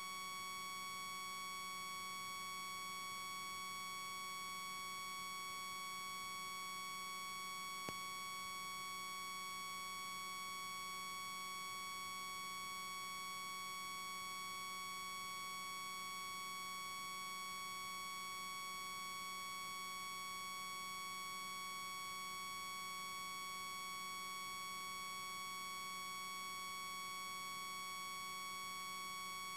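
A steady, unchanging electronic whine made of several fixed high tones, the strongest near 1 kHz, drowning out everything else in the recording; one faint click about eight seconds in.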